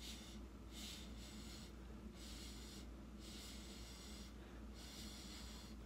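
A person blowing through a drinking straw onto wet acrylic paint: a run of about five breathy puffs, each just under a second long, with short pauses between them.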